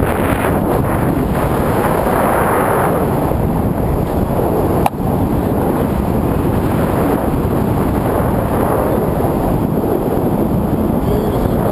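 Rushing airflow of a paraglider in flight buffeting an exposed camera microphone, a loud steady roar of wind noise. A brief click breaks it about five seconds in.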